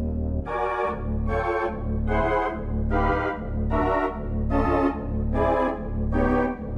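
Organ music accompanying the silent film: a chord struck about every 0.8 seconds over a held bass note.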